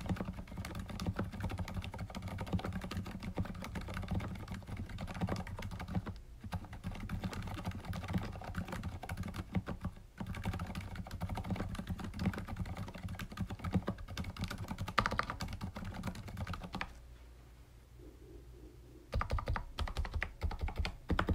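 Continuous typing on a Ducky x Thinkway Tauche.T tenkeyless mechanical keyboard with stock, unlubricated Cherry MX Silent Red linear switches, the keystrokes quiet and clean. The typing pauses about 17 seconds in, then resumes in a short burst of keystrokes near the end.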